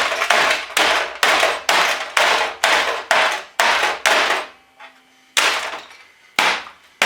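Hammer repeatedly striking a computer's internals, sharp blows about two a second, with a pause of about a second in the middle before a few more.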